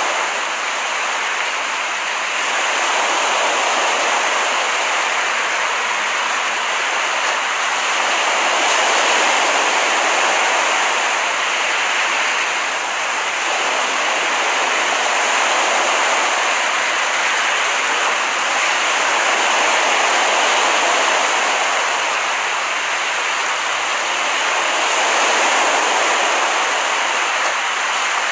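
Recorded ocean surf washing onto a beach, a steady rush that swells and eases about every five to six seconds as the waves come in.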